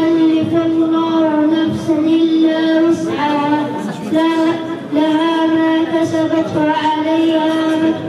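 Singing in a high voice, long steady notes held about a second each with short breaks between them.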